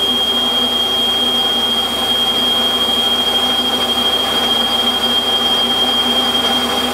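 Warco metal lathe running while a boring bar takes a light cut inside an aluminium bore: a steady mechanical whir with a thin, steady high-pitched whine over it.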